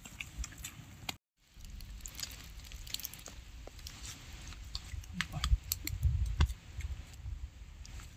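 People eating rice and chicken curry with their bare hands from a banana leaf: small wet clicks of fingers mixing and squishing the food, and chewing. A few low thumps and rumbling a little past the middle are the loudest part.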